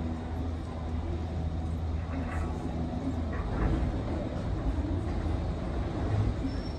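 Disney Skyliner gondola system running: a steady low mechanical rumble and hum, with faint voices in the middle.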